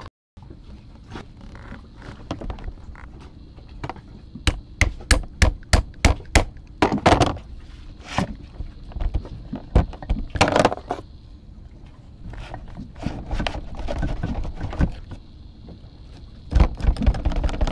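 Screwdriver and metal tools working on an anchor windlass's electric motor and gearbox housing: a long run of sharp clicks and knocks with some scraping as the gearbox is pried off the motor, where it is stuck on with old sealant.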